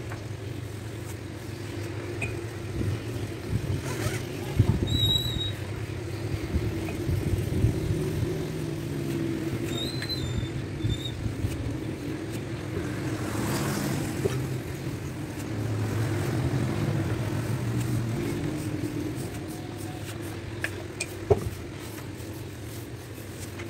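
Steady low engine-like rumble, swelling a little past the middle, with scattered light knocks and taps and one sharper knock near the end.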